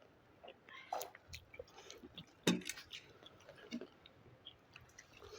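A person chewing food close to the microphone: scattered wet smacks and small clicks, with one sharper click about two and a half seconds in.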